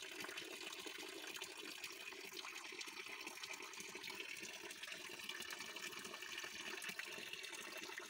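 A thin stream of water pouring steadily from a pipe spout in a stone wall, splashing into a shallow pool below.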